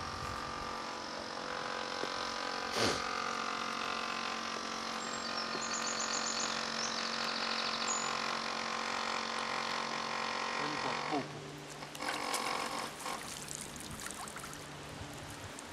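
A steady hum of several tones runs until about eleven seconds in and then stops abruptly. After it, water splashes as a small barbel is brought up at the surface and scooped into a landing net.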